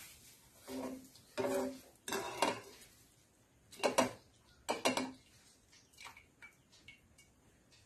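Wire-mesh spider strainer clanking and scraping against a wok while boiled vegetables are scooped out and tipped into a tray: about five metallic knocks with a short ring, the loudest around four and five seconds in, then a few light taps.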